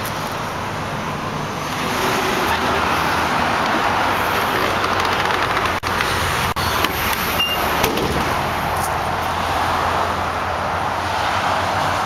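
Steady road-traffic noise from a nearby highway, swelling about two seconds in, with a few light clicks and knocks near the middle.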